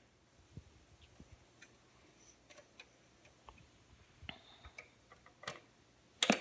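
Faint, irregular clicks and light knocks from hands handling a vintage Emerson clock radio, with a sharper click near the end as one of its knobs is worked.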